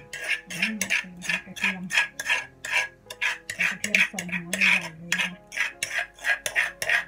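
Metal spoon scraping pounded garlic out of a clay mortar, in quick repeated scrapes about three a second.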